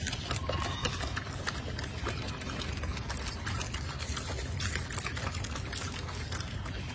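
Golden snub-nosed monkeys chewing and handling fruit and vegetables, with many irregular small crunching clicks over a steady low hum.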